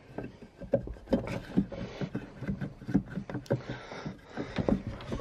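A piece of 3x2 timber being pushed and knocked into the gap beside a car battery in a wooden battery box: a run of irregular wooden knocks and scrapes, a fit that is a tiny bit too tight.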